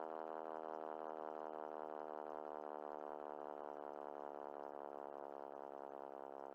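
Fire truck siren winding down: a low, buzzy drone of many tones whose pitch slowly falls as it gradually fades.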